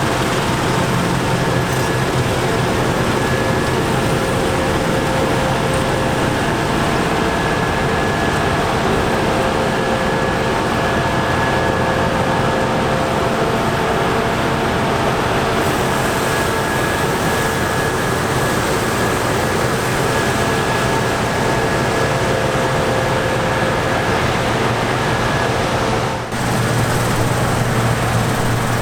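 Diesel harvest machinery (combine harvesters and tractors) running steadily under load, a constant engine hum with a steady whine over it; the sound breaks briefly near the end and comes back with a stronger low hum.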